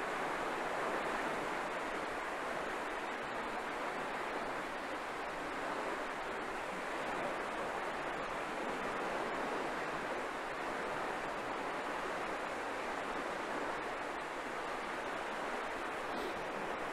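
Fast-flowing channel current rushing and swirling, a steady, even rush of water.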